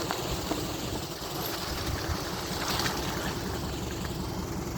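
An engine running steadily with a low, fluttering rumble, and a few faint clicks over it.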